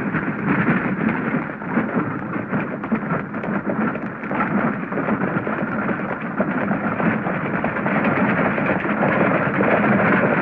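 Galloping horses pulling a stagecoach: a loud, dense clatter of hooves and rattling wheels.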